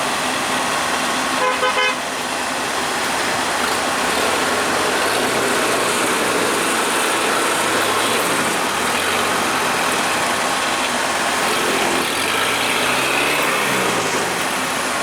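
Motor vehicle engines running, with a short horn toot about one and a half seconds in.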